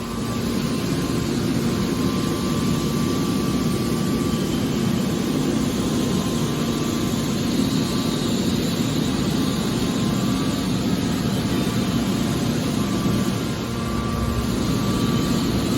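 Hydraulic scrap-metal baler running: a steady drone from its motor and hydraulic pump, with a brief dip in level near the end.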